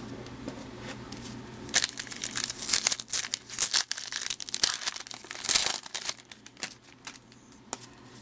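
Plastic wrapper of a baseball card pack being torn open and crinkled by hand: a dense crackling that starts about two seconds in, with several louder rips, then fades to faint rustling near the end.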